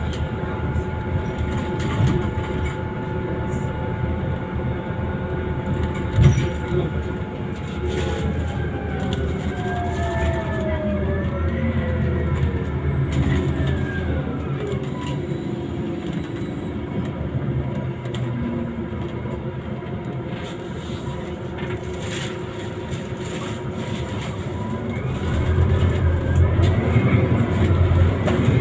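Scania Citywide CNG city bus heard from inside while driving: a steady low running hum with whining tones that slide up and down in pitch, growing louder near the end. A single knock about six seconds in.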